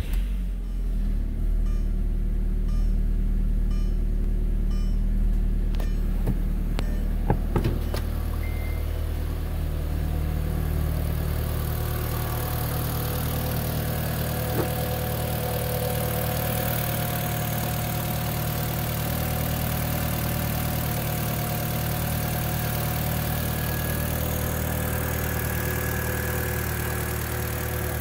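Audi TT quattro's 1.8-litre turbocharged four-cylinder engine catching right at the start and then idling steadily. There are a few sharp knocks about seven seconds in. From about twelve seconds the engine is heard up close under the open hood, with more hiss and a faint steady whine.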